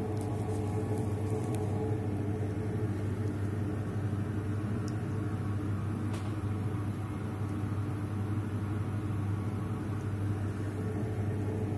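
A steady low machine hum with no change in level, with a couple of faint ticks about five and six seconds in.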